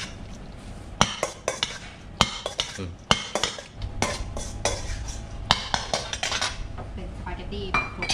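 Metal ladle stirring and tossing koshari in a stainless steel mixing bowl, with irregular clinks and scrapes of metal on metal.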